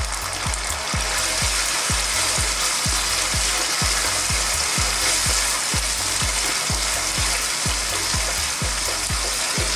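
Sweet and sour sauce of ketchup, onion and carrots sizzling steadily in a hot wok, stirred with a wooden spatula.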